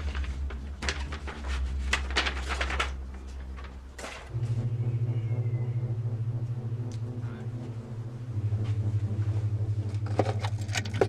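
Rapid small clicks, taps and rustles, like objects being handled on a bench, over a low steady drone. About four seconds in, a louder, steady low hum with a slight pulse starts and carries on.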